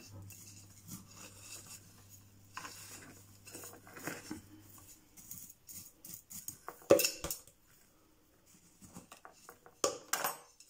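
Small pebbles of a pot's gravel top dressing clicking and rattling against each other and the pot as they are moved by hand, in scattered bursts, with a sharp clack about seven seconds in and another cluster near the end.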